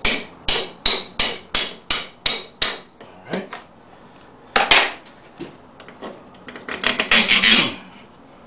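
Steel wrench working nuts on the alternator's threaded studs: a quick run of about eight sharp metallic clicks, about three a second, over the first three seconds. Then a louder clatter of metal about five seconds in, and a longer rattling clatter of metal parts near the end.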